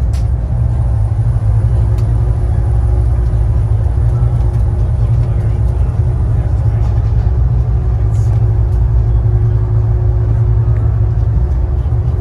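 Fast ferry's engines running with a steady low drone, with a thin high whine over it.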